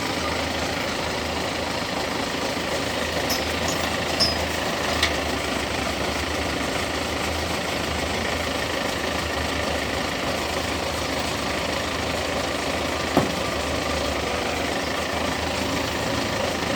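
Farm machinery running steadily with an engine-like drone. A few sharp knocks sound about four, five and thirteen seconds in.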